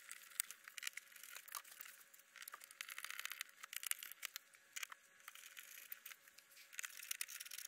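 Faint scratchy rustling and scattered light clicks of hands working on a foam RC model airplane's fuselage and wing.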